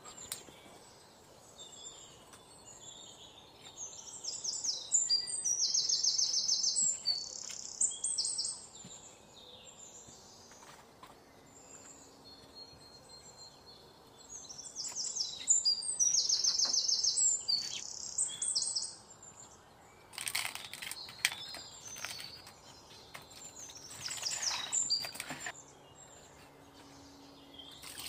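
A songbird sings two loud phrases of rapid, high chirps and trills, each about four seconds long and about ten seconds apart. Later come clusters of short scrapes and taps from a knife on a wooden chopping board.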